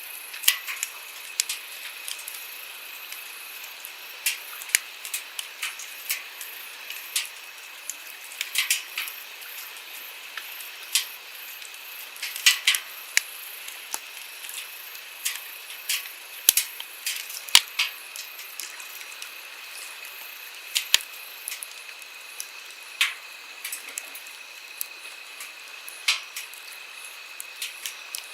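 Wood campfire crackling, with irregular sharp pops and snaps, some louder than others, over the steady rush of a flowing stream.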